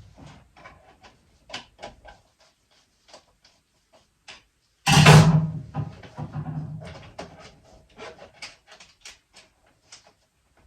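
Knocks and clicks of hands working on metal fittings, with one loud bang about five seconds in that rings on briefly.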